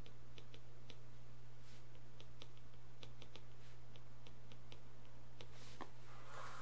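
A stylus tapping and clicking on a tablet screen during handwriting: a string of small, irregular clicks over a steady low hum.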